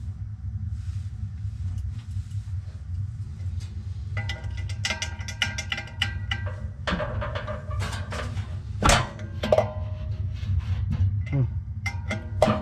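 Metal clinks and rattles of hand tools and sheet-metal blower parts being handled, some ringing briefly, over a steady low hum. A couple of sharper knocks come about nine seconds in.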